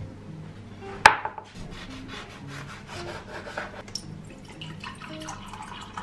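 A sharp knock about a second in, then a run of quick rubbing or scraping strokes, with faint soft music notes underneath.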